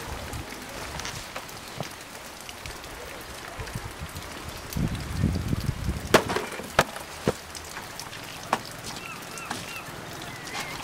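Sharp wooden knocks and clicks, three close together about six to seven seconds in and another a second later, with a low rumble just before them and short high chirps near the end.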